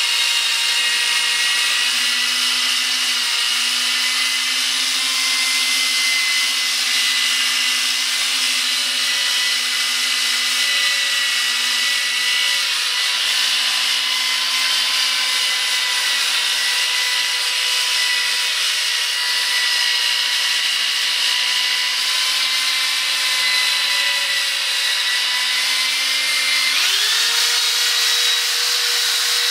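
Corded electric drill running steadily with a constant motor whine, spinning a foam compounding pad with rubbing compound against a plastic headlight lens to buff out the cloudy haze. Near the end the whine jumps up in pitch as the drill speeds up.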